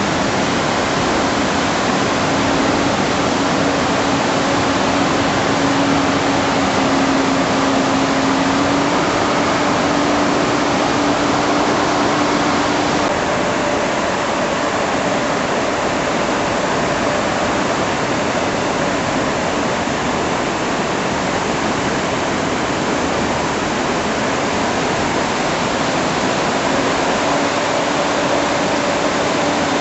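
Steady, loud rush of a river in flood, with a faint steady low hum coming and going underneath.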